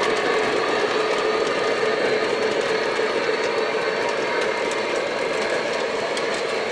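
O scale model train freight cars rolling over the track across a truss bridge: a steady rumbling clatter of wheels on rail that grows slowly fainter.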